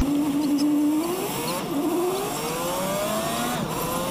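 Truck diesel engine accelerating, heard from inside the cab. Its note rises, drops back sharply about a second and a half in and again near the end, and climbs again each time, as it shifts up through the gears.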